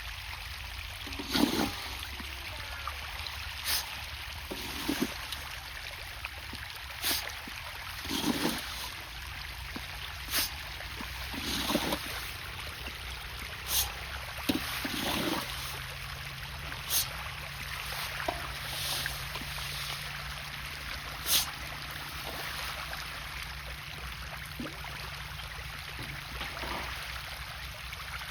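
Water trickling steadily, with short sharp sounds breaking in every one to three seconds.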